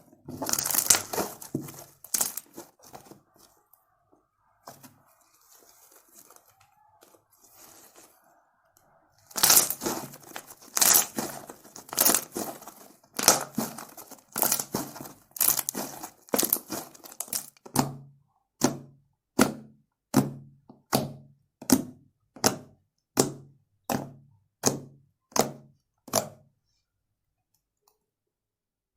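Fluffy hand-soap slime being squished and pressed, making wet crackling and popping sounds. The handling turns into a run of about a dozen evenly spaced pops, a little over one a second, then stops.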